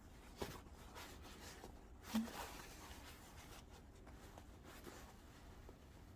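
Faint handling noises of a fabric school bag being worked on: soft rubbing and scratching, with a couple of small clicks, one just under half a second in and a slightly louder one about two seconds in.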